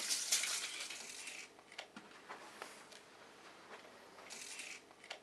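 Steel tape measure being worked: a faint sliding rattle of the blade running out or back, in two short stretches, about the first second and a half and again near the end, with a few faint clicks between.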